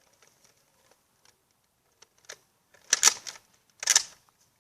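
A few faint clicks, then two short clattering snaps about three and four seconds in: toy Nerf blasters being fired.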